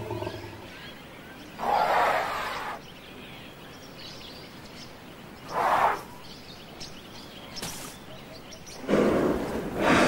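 African elephants at a waterhole blowing and spraying water through their trunks: three hissing bursts, the first and last over a second long, the middle one short.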